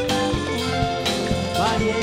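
Live gospel worship music: a band with drum kit and keyboard playing a steady beat under a lead singer and choir.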